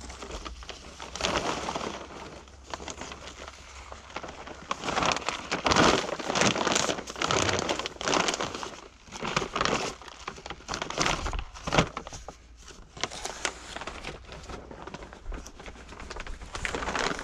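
Plastic fertilizer sacks rustling and crinkling in irregular bursts as empty sacks are handled and folded.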